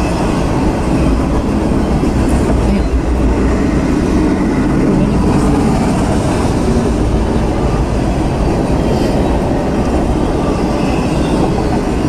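A Norfolk Southern double-stack intermodal container train rolling past at close range: a loud, steady rumble of railcar wheels on the rails, with a few faint clicks.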